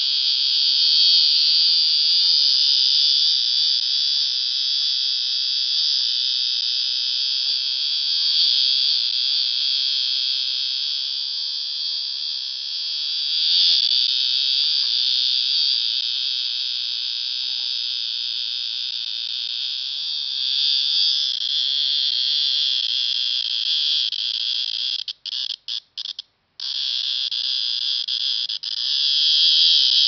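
A male cicada held in the hand, calling with its tymbal organs: a loud, steady, high-pitched shrill buzz. A few seconds before the end it breaks off several times in quick stutters, then starts again.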